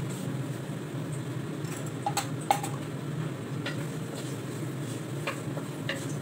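A wooden spatula knocks a few times against a non-stick wok, sharpest about two and a half seconds in, over a steady kitchen fan hum.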